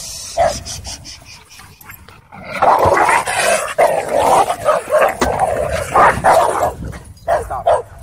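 Dogs fighting: loud barking and snarling breaks out about two seconds in and lasts about five seconds, with a few shorter barks near the end.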